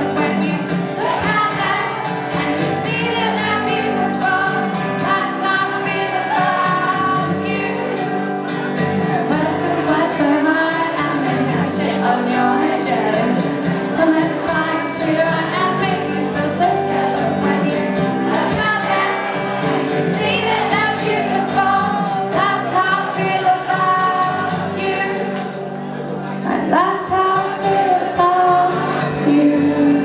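Live pop song: a woman singing over guitar accompaniment, with a brief softer passage about two thirds of the way through.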